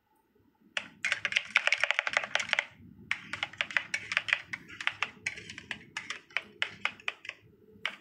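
Metal spatulas chopping and working an ice-cream mix on a stainless-steel ice-roll cold plate: fast runs of sharp metal-on-metal taps and clicks, very rapid at first, then a little more spaced, beginning about a second in and ending with a single tap at the end.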